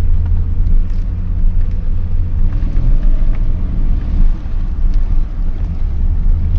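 Steady low rumble of a 1998 Lincoln Mark VIII's 4.6-litre V8 and drivetrain at low speed or idle, heard from inside the car.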